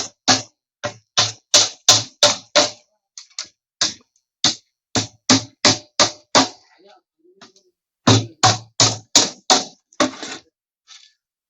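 Hammer driving nails into a plywood bird cage during assembly: quick, even blows about three a second. The blows break off a little after six seconds in and start again about two seconds later.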